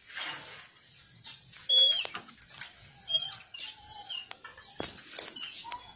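Metal lattice gate squeaking on its hinges as it is swung, three sharp high squeals, the loudest about two seconds in, with rustling from the phone being handled.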